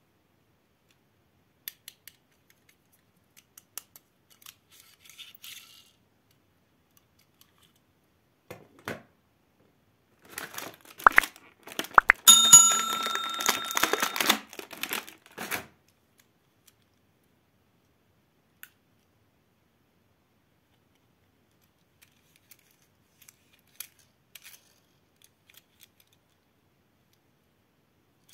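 Die-cast toy cars and a clear plastic blister tray being handled: scattered small clicks, then about ten seconds in a few seconds of loud plastic crackling and clicking as a car is taken out of the tray. Over the crackling a short bell-like chime rings for about two seconds, the sound effect of the on-screen subscribe-bell animation.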